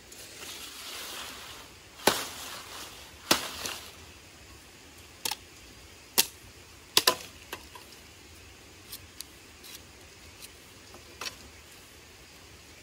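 Dry firewood cracking and snapping in irregular sharp pops, the loudest ones in the first half and fainter ones later, over a light hissing rustle at the start.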